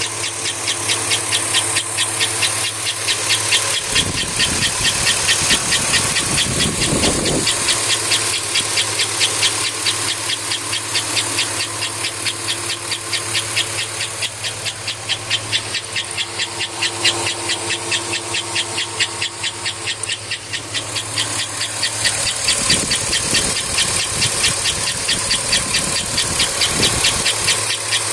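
2005 Chevrolet Avalanche engine running with a loud, fast, evenly repeating chirp riding over the engine hum. Twice a deeper rumble swells for a few seconds.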